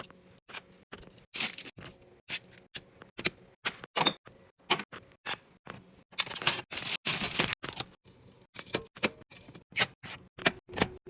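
Clatter of food containers, jars and bottles being handled and set down while a refrigerator is emptied and cleaned: a quick, irregular run of clicks and knocks, with a longer hissy, rubbing sound a little past halfway.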